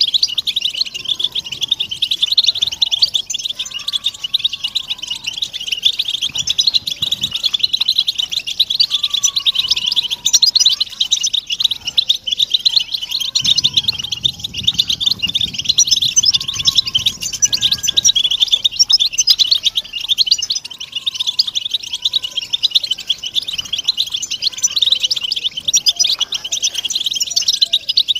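A flock of European goldfinches chattering together: a dense, unbroken stream of high twittering and tinkling calls. These are the group contact and mating calls used to stir a silent male goldfinch into song.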